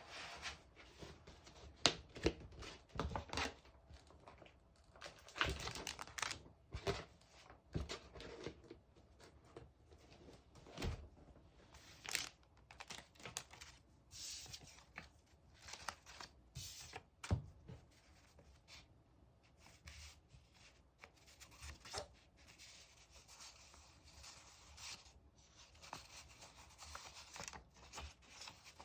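Paper scrapbooking materials being handled: irregular rustling and tearing swishes mixed with sharp light taps and clicks.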